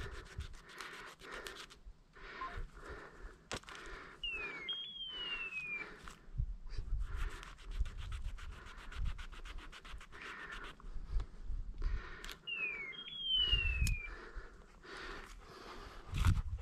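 A setter panting in quick, rasping breaths close to the microphone. A short two-part falling whistle sounds twice, about 4 s in and again about 12.5 s in.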